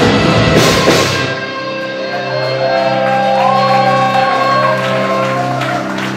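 Live metalcore band playing loud with pounding drums and distorted guitars. About a second in, the full-band hits stop and a sustained chord rings out, with a higher note bending and wavering above it.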